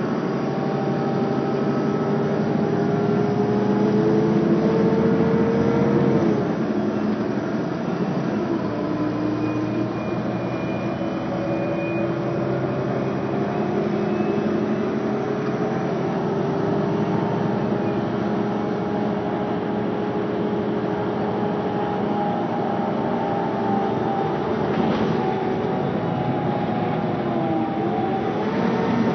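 Mercedes-Benz Citaro bus engine heard from inside the passenger cabin, pulling hard under acceleration. Its pitch climbs steadily, drops suddenly at an automatic gear change about six seconds in, then climbs slowly again until another shift near the end.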